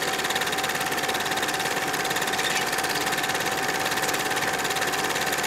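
Film projector running: a steady mechanical clatter with a rapid, even flutter and a thin steady hum.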